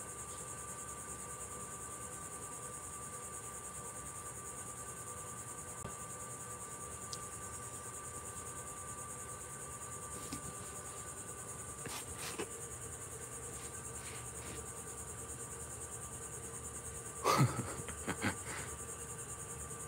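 Steady high-pitched chirring of insects, crickets by their sound, with a few faint short sounds and one louder short sound falling in pitch about seventeen seconds in.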